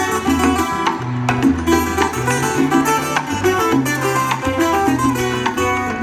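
Ensemble of Puerto Rican cuatros with an acoustic guitar playing a lively instrumental, many quick plucked notes over a steady bass line.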